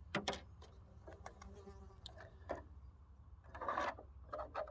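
Small clicks and plastic rustles as a radio-controlled funny car's Lexan body shell is unclipped and lifted off its chassis by hand, over a steady low rumble.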